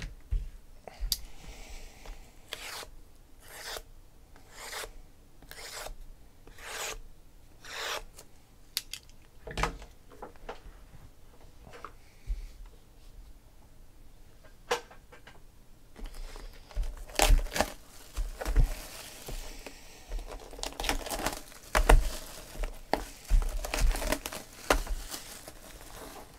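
Rubbing strokes about once a second for the first ten seconds. Later, thin plastic shrink wrap is torn and crinkled off a sealed trading-card box.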